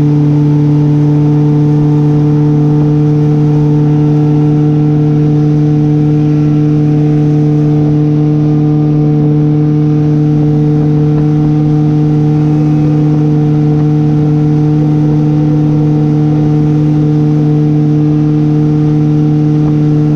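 Outboard motor on a small aluminium boat running at a steady throttle, a constant even drone that does not rise or fall.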